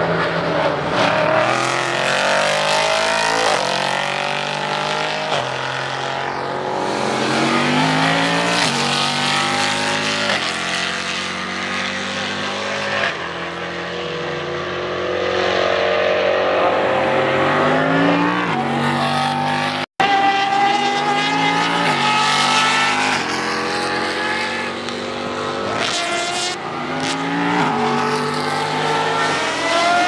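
Racing car engines accelerating hard through the gears as cars pass on track, the pitch climbing and then dropping with each upshift every second or two. There is a brief sudden dropout about two-thirds of the way through.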